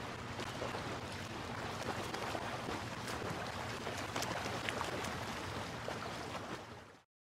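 Ocean surf: a steady wash of waves with small crackling splashes, cutting off suddenly near the end.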